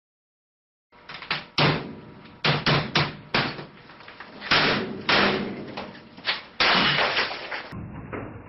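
Silence for about a second, then a dozen or so loud bangs and crashes of a computer monitor being smashed against an office desk.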